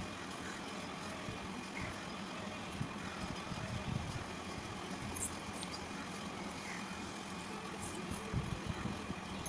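Steady low background rumble, like an engine or traffic running, with a few faint taps over it.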